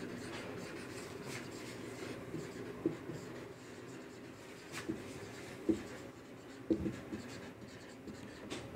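Marker pen writing on a whiteboard: faint strokes with a few short, light taps.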